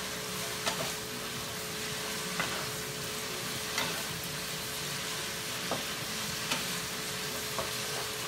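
Steak cubes and mushrooms sizzling in a hot skillet while being stirred, the spatula clicking and scraping against the pan every second or so.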